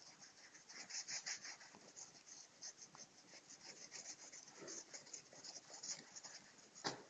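Faint, quick scraping strokes on a surface, several a second, with a sharper knock near the end.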